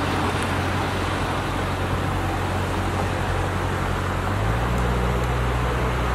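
Road traffic on a wet road: a steady hiss of tyres from passing vehicles over a low engine hum. About four and a half seconds in, a truck's deeper engine drone comes in.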